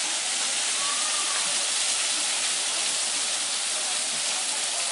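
Steady rush of water pouring from a wooden flume onto the waterwheel of an old water-powered gristmill.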